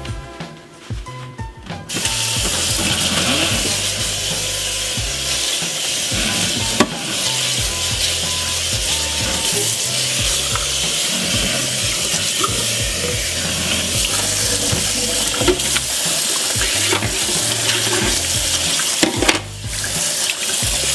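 Kitchen faucet's pull-out sprayer spraying water into a stainless steel sink to rinse out bleach water: a steady hiss that starts about two seconds in and breaks off briefly near the end before the water runs again.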